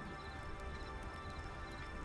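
Soft background music of sustained, held tones, with a faint crackle of burning wood now and then.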